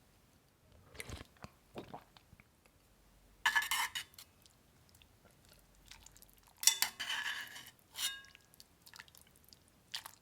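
Close-up eating sounds of a person eating malatang: chewing with small mouth clicks, and two louder, longer noisy bursts, one about three and a half seconds in and one near seven seconds.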